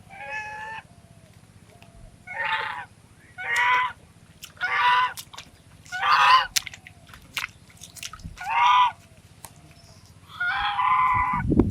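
Swan giving a series of seven loud honking calls a second or so apart, the last one drawn out longer. A low thud sounds right at the end.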